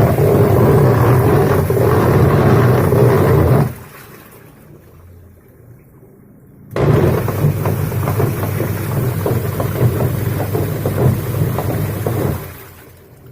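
Polytron washing machine running with a rough, coarse noise, the fault it is being shown for. It runs for about four seconds, stops for about three, then runs again for about five seconds before dying away near the end, like the agitator's back-and-forth wash strokes.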